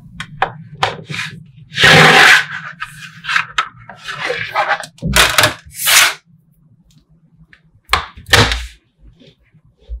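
Small metal magnetic balls clicking and clattering as a large magnetic-ball structure is handled, turned and set down, in a string of short bursts, the loudest about two seconds in and a few sharp clicks near the end.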